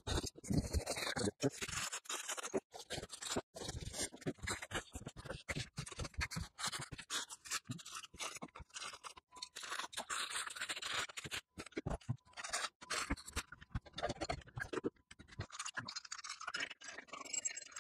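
A cardboard box and its packaging being handled as a miter saw is unpacked: irregular rustling, scraping and scratching, with many short knocks and clicks of parts set down on a wooden workbench.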